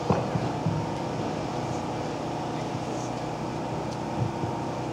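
Outdoor background: a steady low hum under a faint murmur of voices, with a few soft low thumps.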